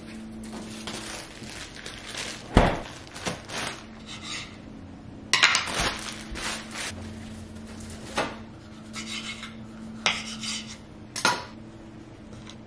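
Kitchen food-prep handling sounds: scattered sharp knocks and clatters, a short crinkly rustle of a plastic bread bag, and a knife working an avocado on a wooden cutting board, over a faint steady hum.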